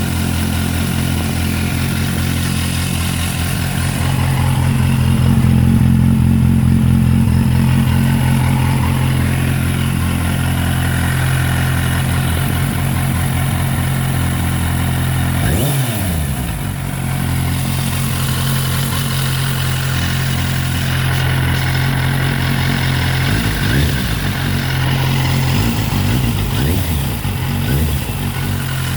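Kawasaki Z800 motorcycle's inline-four engine running at a steady idle. About halfway the engine speed drops sharply and comes back, and in the last few seconds it wavers up and down.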